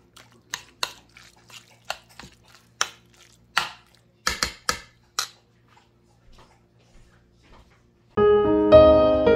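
A metal spoon stirring mashed eggplant in a bowl, clinking against the bowl about ten times over the first five seconds. Piano music starts near the end and is the loudest sound.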